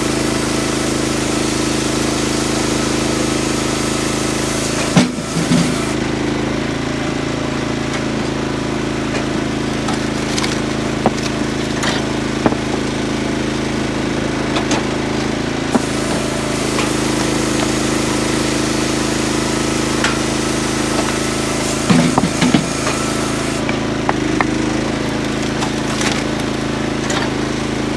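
Teak XL firewood processor running steadily under engine power, with scattered knocks and clatter of wood being worked. Two louder clusters of bangs come about five seconds in and again around twenty-two seconds.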